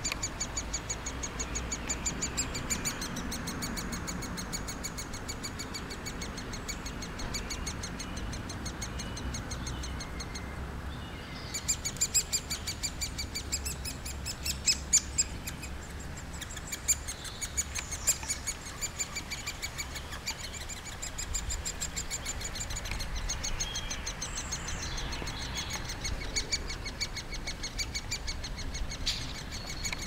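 Great spotted woodpecker nestlings calling from the nest hole in a fast, unbroken chatter of short high notes. The calling stops briefly about ten seconds in, then comes back louder with a few sharper notes for several seconds while an adult is at the hole.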